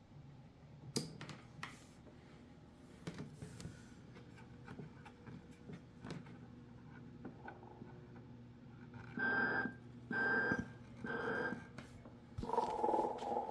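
Telco Snoring Santa animated toy running: faint clicking over a low steady hum, then three short high whistling tones a little under a second apart, followed near the end by a louder, lower sound.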